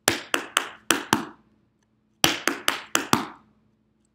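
Metal taps on tap shoes striking a hard dance floor in the Maxie Ford step done at speed: two quick runs of five crisp taps each (leap, two-brush shuffle, leap, toe tip), with a pause of about a second between them.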